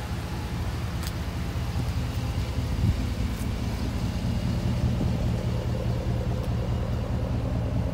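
Dodge Ram 1500's V8 idling through a twin 3-inch cat-back exhaust with round-body mufflers and 5-inch tips: a steady, deep, fat idle, lumping over.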